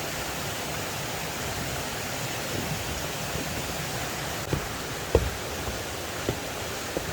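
Steady rushing of running water from a nearby stream or waterfall, with a few dull thumps from about four and a half seconds in.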